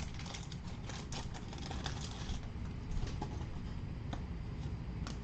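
Crackling and clicking of a wax-paper baseball card pack being torn open and the cards handled, thick for the first couple of seconds and then sparser.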